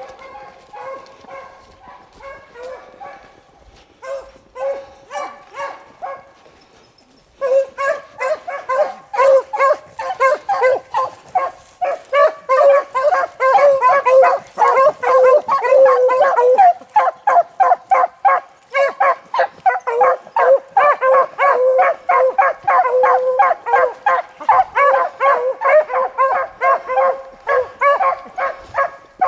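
Pack of beagles baying while running a rabbit. At first the barks are fainter and spaced out. From about seven seconds in, several hounds give tongue together in rapid, loud, overlapping barks.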